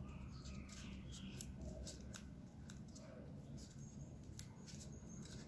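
Faint handling sounds: fingers pressing a glued EVA foam petal closed, with a scatter of soft small clicks.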